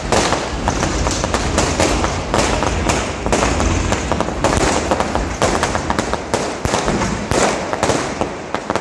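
Aerial fireworks going off overhead in quick succession: a loud, dense, unbroken run of bangs and crackles with a low rumble underneath.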